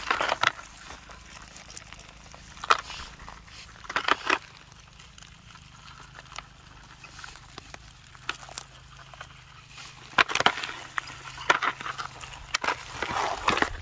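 Short bouts of rustling and crackling, about six in all, a few seconds apart, with quieter stretches between.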